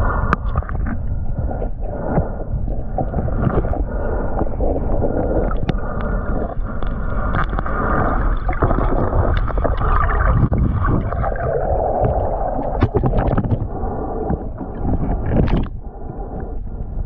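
Muffled underwater water noise, a continuous rushing and gurgling picked up by a camera held underwater while snorkeling, with scattered small clicks and knocks throughout.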